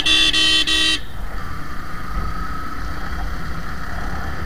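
A vehicle horn honking loudly, a steady multi-tone blare broken by a couple of brief gaps, cutting off about a second in. After it, the steady low rumble of a moving motorcycle with wind on the microphone.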